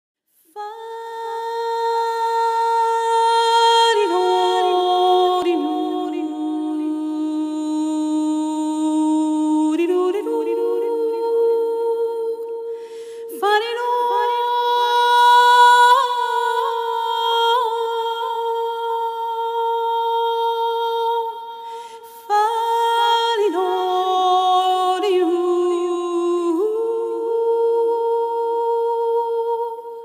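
Slow, wordless vocal music: long held hummed notes, with no beat. The phrases break off and start again at about 13 seconds and 22 seconds.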